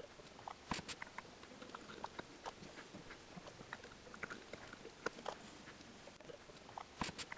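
Faint scattered clicks and taps of small clear plastic cup enclosures and their lids being handled while they are watered from a squeeze wash bottle, with a few sharper clicks about a second in and near the end.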